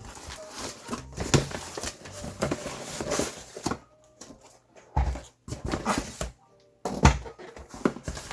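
Cardboard box being opened and unpacked by hand: irregular rustling, scraping and knocks, with music underneath.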